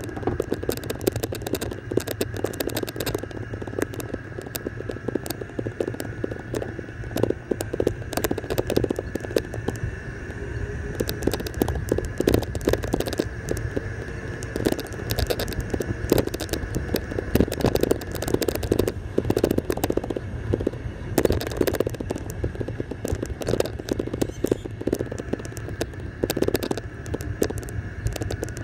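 Golf cart driving along a paved road: a steady high whine and low hum, with frequent crackling and rattling clicks over the top.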